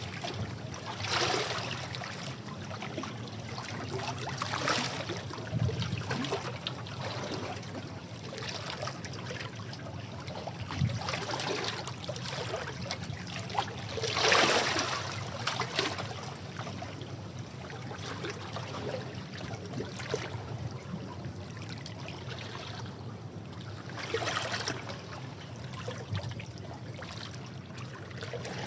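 Sea waves washing against rocks: a steady wash of water broken every few seconds by the surge of a wave, the largest about halfway through.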